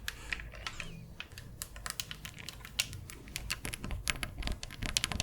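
Keys of a small keyboard clicking as they are pressed, in quick, irregular clicks like typing.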